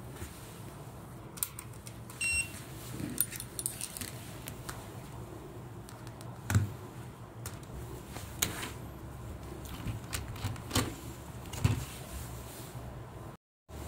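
Handling noises at a workbench: a single short electronic beep from a bench power supply about two seconds in, then metal alligator-clip test leads clinking and a hollow plastic toy base knocking as it is picked up and turned over.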